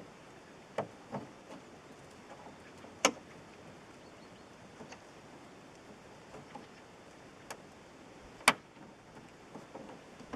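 Sharp plastic clicks and snaps from zip ties and Ziptie Plug caps being worked by hand: the tails bent over and pushed in, the caps pressed shut. A few scattered clicks, with two louder snaps about three seconds in and near the end.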